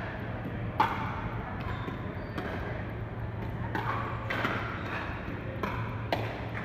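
Pickleball paddles striking the hard plastic ball in a rally: a string of about seven sharp hollow pops, roughly one every half second to second, each with a short echo, over a steady low hum.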